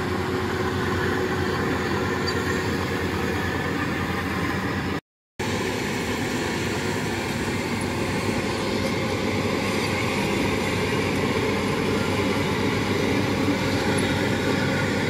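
Rice combine harvesters, a WD105 Pro and an FMWorld WD115 Pro, running steadily while harvesting: engine and threshing noise. The sound drops out briefly about five seconds in.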